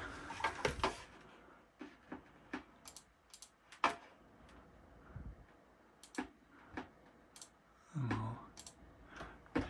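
Irregular single clicks of a computer mouse's buttons, about fifteen of them spread unevenly with pauses between.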